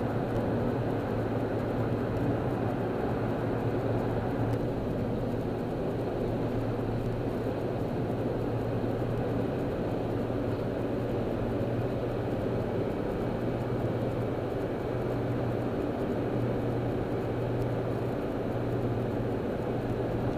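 Steady road noise inside a moving car's cabin at freeway speed, with a low, steady hum under it.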